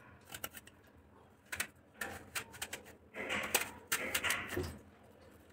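Paring knife cutting into small whole raw eggplants (brinjals) held in the hand. A few faint short clicks come first, then several longer slicing strokes from about two seconds in.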